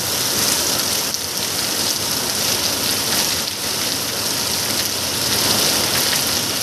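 Steady rain falling, with water streaming and dripping off a roof edge, an even hiss without breaks.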